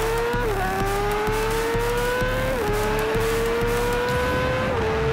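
Suzuki Hayabusa's four-cylinder engine accelerating hard at high revs. Its pitch climbs through each gear and drops at three quick upshifts about two seconds apart, over heavy wind rush at speed.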